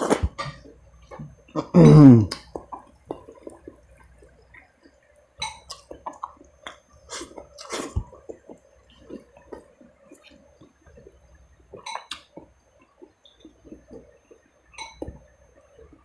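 A man eating rice with his bare hands: scattered wet chewing and lip-smacking sounds and small clicks. About two seconds in comes one loud voiced sound from him that falls in pitch. A faint steady hum runs underneath.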